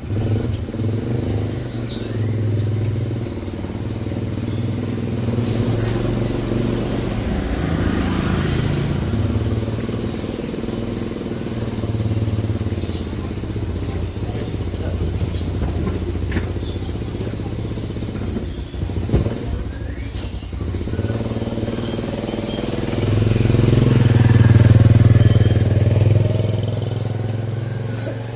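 Motorcycle engine running throughout, growing loudest a little over three-quarters of the way through as a motorcycle rides up toward the listener, then easing off.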